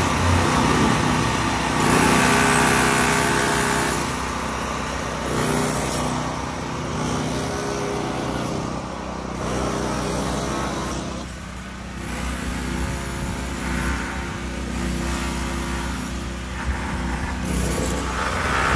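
Street traffic: cars passing by, the noise swelling and fading over several seconds.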